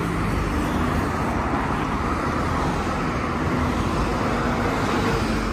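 Street traffic: cars, a van and a truck passing, a steady rush of engine and tyre noise.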